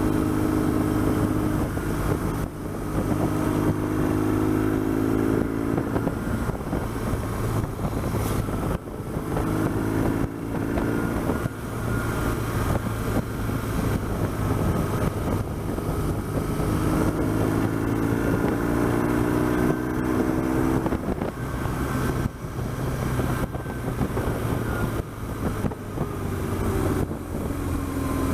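BMW R1200GS flat-twin boxer engine running under way on the road, its revs climbing several times as it pulls through the gears, over a steady rush of wind noise on the microphone.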